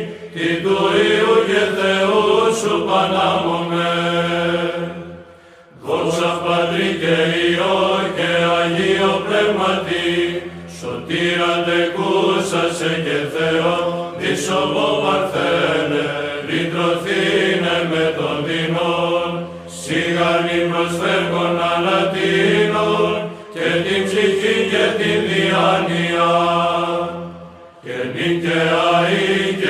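Byzantine chant sung by a choir: voices carry a melismatic melody over a steady held drone note (the ison). The singing breaks briefly about five seconds in and again near the end, between phrases.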